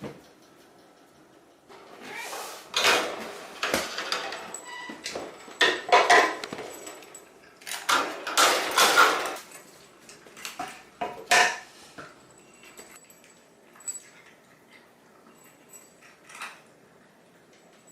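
Dishes and metal utensils clattering and clinking in a run of busy bursts, with scattered single knocks near the end.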